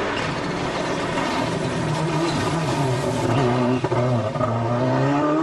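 Subaru Impreza WRC rally car's turbocharged flat-four engine revving hard on a stage run, its pitch dipping and then climbing over the last second or so. A single sharp crack comes about four seconds in.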